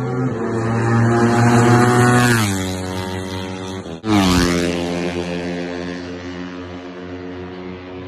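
Moto3 racing motorcycles' 250 cc single-cylinder four-stroke engines passing at high revs on the straight. The first pass-by drops in pitch about two and a half seconds in. After a cut, a second bike goes by about four seconds in, its pitch falling sharply before the sound fades.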